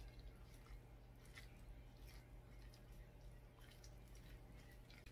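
Faint wet squishing and light scattered clicks of a wooden spoon mixing bean sprout rice with seasoning sauce in a ceramic bowl, over a low steady hum.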